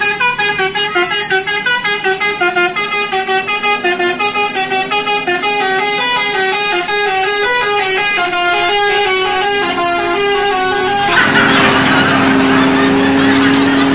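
Tour bus's basuri telolet horn, a set of electric trumpets, playing a fast melody of short stepping notes. About eleven seconds in the tune stops suddenly, and a loud rush of noise with a low steady tone follows as the bus passes close.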